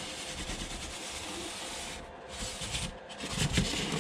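Hands rummaging through a cardboard box and its packing, a steady rustling and rubbing with a few light knocks.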